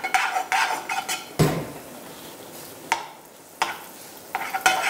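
Cooking utensils clattering and knocking against pots and pans, with one heavier clunk about a second and a half in, over a faint steady sizzle of food cooking; a few single knocks follow.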